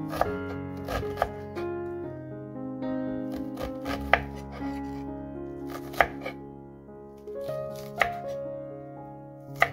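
Kitchen knife chopping an onion on a wooden cutting board: about eight sharp, irregular knocks of the blade striking the board. Background music with sustained notes plays throughout.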